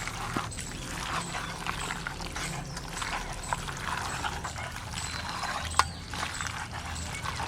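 Hands mixing raw duck meat with ground spice paste and mustard oil: irregular wet rubbing and small clicks, with one sharper click about six seconds in.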